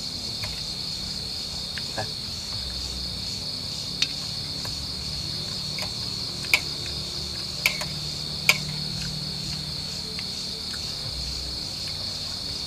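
Steady, high chirring chorus of night insects in the forest. A few sharp clicks stand out, about four seconds in and three more between six and a half and eight and a half seconds.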